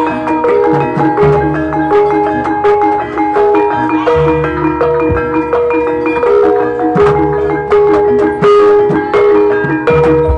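Javanese gamelan playing ebeg accompaniment: bronze saron metallophones ring out a running melody of struck notes, over drum strokes and deep low notes.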